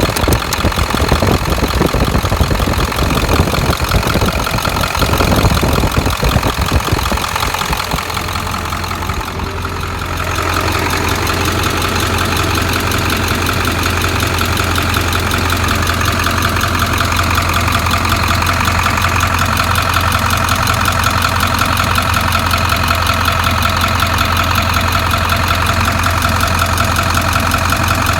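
7.3-litre V8 engine running with a ticking noise. The sound is uneven for the first several seconds, then settles into a steady idle about ten seconds in.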